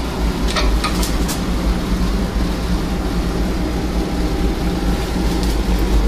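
Sheet steel being bent on a combination slip roll, shear and brake: a few sharp clicks and clanks as the brake works slowly through metal thicker than it is made for. A steady low hum runs underneath.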